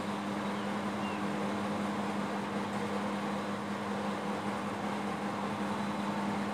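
Steady drone of running machinery, a constant low hum that does not change, with no tool strikes standing out.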